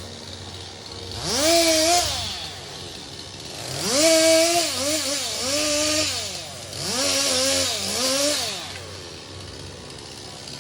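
Chainsaw revved three times: each burst climbs quickly to high speed, holds with small dips in pitch, then drops back to idle. The second and third bursts are longer than the first.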